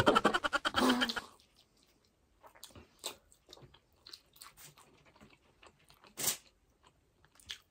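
Close-miked chewing and wet lip smacks of people eating burger steak in gravy with rice: sparse soft mouth clicks with one louder smack about six seconds in. A short burst of voice, like laughter, opens the first second.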